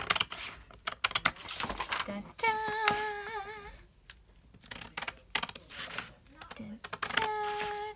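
Scissors snipping through stiff brown kraft paper in quick repeated cuts. A woman's voice sings a held, wavering note about two and a half seconds in and another near the end.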